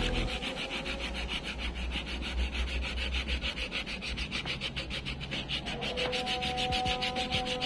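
Coarse 80-grit silicon carbide sandpaper wrapped on a sanding block, rubbed by hand back and forth along a wooden board in quick, even scratchy strokes, several a second.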